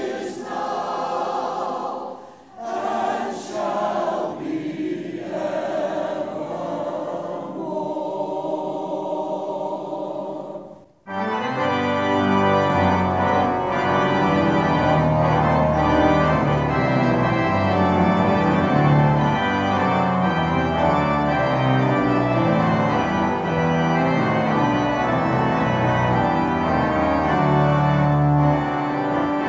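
A choir singing, which stops about eleven seconds in. A church organ then starts the postlude, louder and fuller, with a deep bass line.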